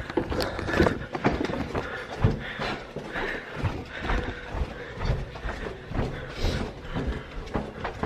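Footsteps along a carpeted hallway: irregular dull thumps as people walk and jog, with rustling between the steps.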